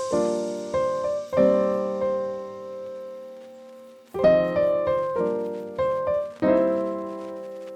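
Background piano music: a few chords struck in quick succession, a long ringing pause as they fade, then another run of chords that is left to die away.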